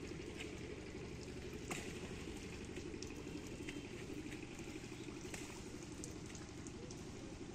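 Water dripping and pattering from a raised twine lift net into the pond below: scattered sharp drips, a couple standing out about two and five seconds in, over a steady low rumble.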